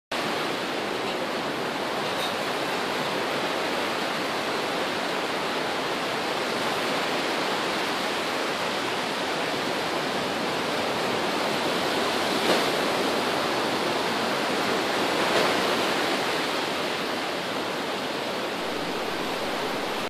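Ocean surf washing onto a sandy beach: a steady rushing of breaking waves, with two slightly louder surges in the second half.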